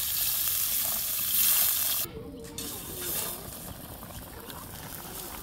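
Water poured in a stream into a steel pot of chicken and potatoes frying in hot oil, splashing and sizzling loudly for about two seconds, then cutting off abruptly to a much quieter background.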